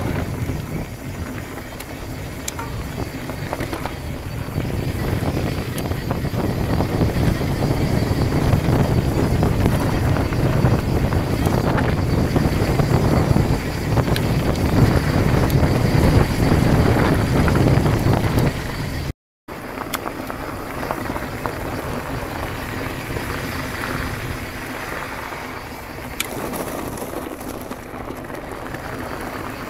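Mountain bike being ridden over a dirt trail: tyres rolling and the bike rattling over the dirt, with wind rushing on the camera microphone. After a brief cut about two-thirds of the way through, the rolling noise is quieter, on a gravel track.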